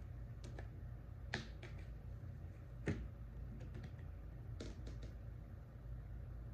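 A dozen or so light clicks and taps at uneven intervals, the sharpest a little over a second in and about three seconds in, over a low steady hum.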